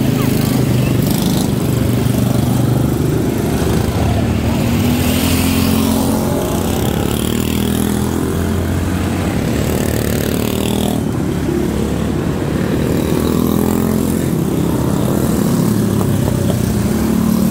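Several quarter midget race cars with single-cylinder Briggs & Stratton Animal engines running flat out around a dirt oval. Their pitch rises and falls continuously as the cars pass.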